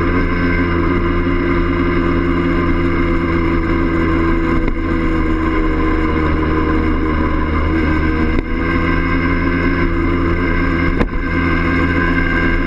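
Yamaha DT50M's small two-stroke single-cylinder engine running steadily while the moped is ridden, heard from on the bike. The sound dips briefly twice, the second time with a short click.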